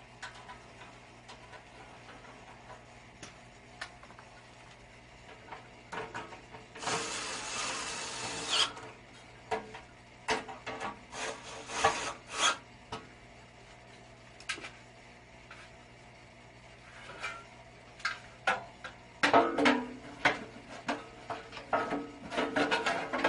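Hands-on work on a furnace: a scraping, rubbing noise lasting about two seconds, then scattered clicks and clatter of tools and metal parts being handled, over a faint steady hum.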